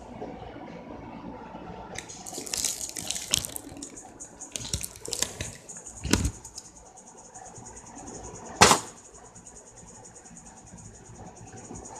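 A few seconds of rustling and scraping noises, then two sharp knocks a couple of seconds apart, the second the loudest, over a steady high hiss.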